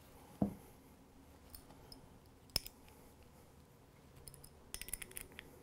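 Light handling clicks of a metal Schaller strap lock being fitted onto a guitar strap: a soft knock just after the start, a single sharp click about two and a half seconds in, and a quick run of small clicks near the end.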